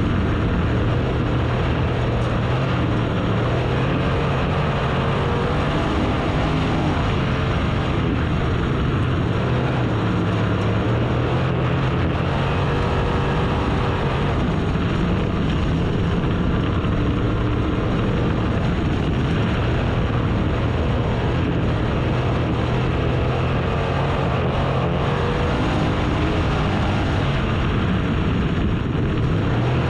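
Race car engine running hard, its pitch rising and falling in slow swells every few seconds as it goes around the track.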